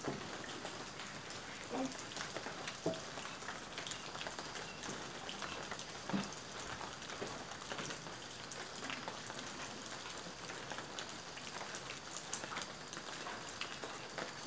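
Steady rain falling, with many separate drops ticking and pattering irregularly on a hard surface.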